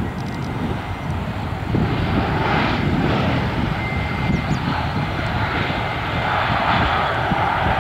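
Airbus A320 jet engines on the landing roll after touchdown, a steady jet noise that swells about two seconds in and stays loud.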